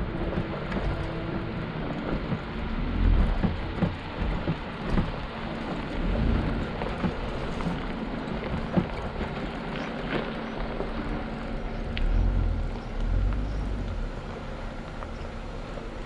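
A 4x4 truck driving a rough dirt trail: the engine runs steadily under a constant rattling clatter, with a few heavy low thumps as it goes over bumps.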